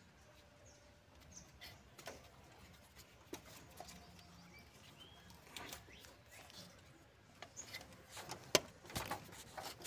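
Faint scattered clicks and rubbing of a rubber spark plug wire boot being handled and pressed onto a distributor cap terminal, sparse at first and busier near the end. Faint bird chirps sound once or twice in the background.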